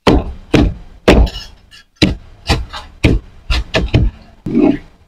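Cleaver chopping a fried martabak telur into pieces on a wooden cutting board: about a dozen sharp chops through the crisp crust into the wood, coming faster in the second half.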